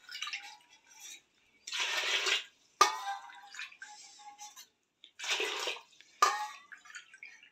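Water poured from a small steel bowl into a pressure cooker onto chana dal, in several short splashing pours with faint clinks and trickles between them.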